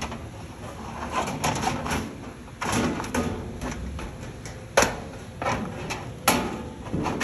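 Sheet-metal filing cabinet panels being handled and fitted together: scraping and rattling, with sharp metal knocks about five and six seconds in.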